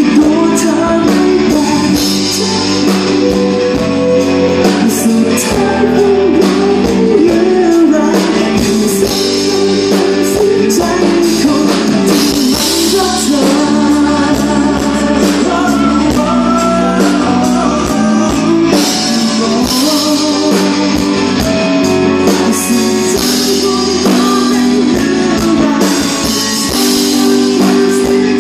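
Live rock band playing: a male singer over amplified electric guitar and drums, continuous and loud.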